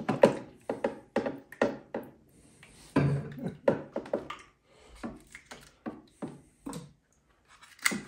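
Hard plastic ice tray of an EcoFlow Glacier ice maker being lifted out and handled, with ice cubes knocking on it: an irregular run of sharp clicks and knocks.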